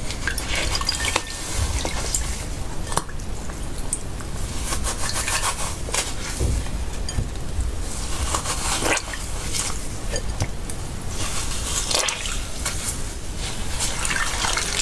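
Slime being squished and worked by hand, making irregular wet sticky clicks and pops.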